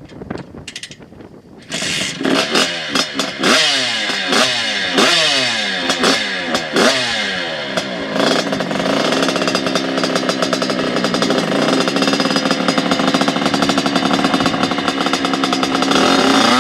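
Tuned 100 cc single-cylinder two-stroke Simson moped engine, low for about two seconds, then revving hard with repeated quick rises and drops in pitch, and running steadily at high revs from about eight seconds in.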